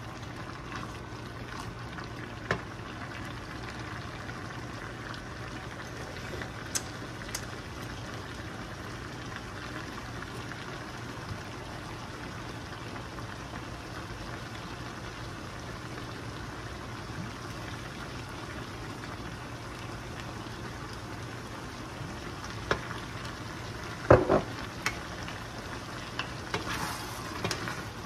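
Chopped meat frying and sizzling in a skillet as a wooden spoon stirs it. The spoon clacks against the pan now and then, loudest in a quick cluster of knocks near the end.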